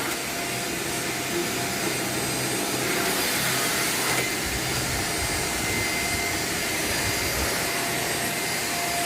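Deermah vacuum cleaner running steadily, its motor whining with a constant rush of suction air as it is tried out on a rug.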